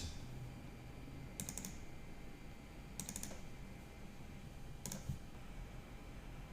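Faint clicking at a computer, keys or mouse buttons, in three short clusters of quick clicks about a second and a half apart, over a low steady background hum.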